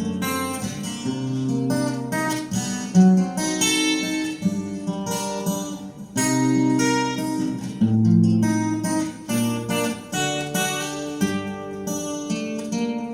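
Acoustic guitar playing an instrumental introduction: a run of plucked notes and strummed chords.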